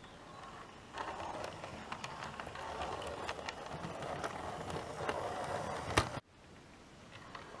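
OO gauge model train rolling past on its track, its wheels rattling and clicking over the rail joints. A sharp click, then the sound cuts off suddenly about six seconds in.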